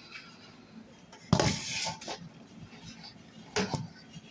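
Knife and utensil sounds from a zucchini being cut and hollowed out: a sharp knock about a second in, followed by a short scrape, and a second, shorter knock near the end.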